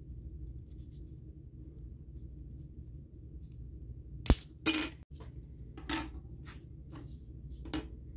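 Sharp clicks and clinks of small plastic and metal parts from an Apple aluminium keyboard's battery cap, worked with a metal pick and set down on a hard surface: one loud click about four seconds in, a short clatter right after, then a few lighter clicks. A steady low hum runs underneath.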